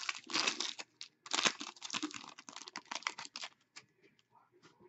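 A foil trading-card pack wrapper crinkling and tearing as it is ripped open by hand, in two bursts of dense crackle, the second and longer one ending about three and a half seconds in; after that only a few faint ticks.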